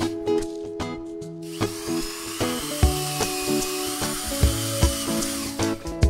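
Background music with a steady beat, and under it a cordless drill driving a screw into a washing-machine motor's terminal box: the drill's motor whines for about four seconds, starting about a second and a half in and stopping just before the end.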